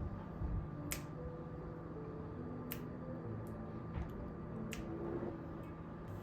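Three sharp clicks, about two seconds apart, with a few fainter ticks between them, over a steady low hum and faint soft tones.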